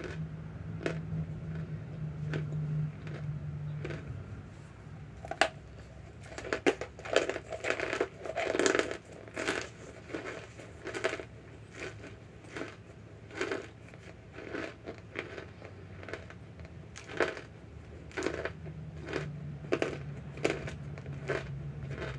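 Chewing and crunching mouthfuls of laundry starch and cornstarch: a run of irregular crisp crunches that thickens about a quarter of the way in. A low steady hum sits under the start and returns near the end.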